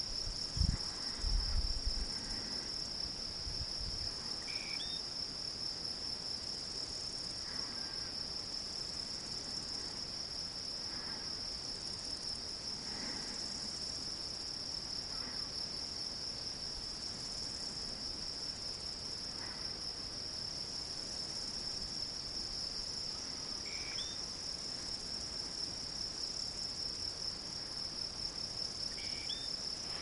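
Crickets trilling in a steady, high-pitched, unbroken chorus. A few short rising chirps come through about five seconds in and twice near the end, and a few low bumps sound in the first couple of seconds.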